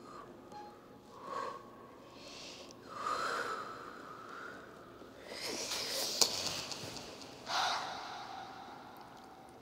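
A woman snorting and gasping in a run of short breathy bursts, with a sharp click in the loudest stretch about two-thirds of the way through.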